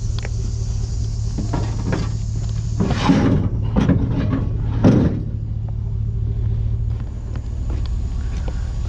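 Vehicle engine idling, a steady low hum, with a few louder knocks and scrapes about three to five seconds in.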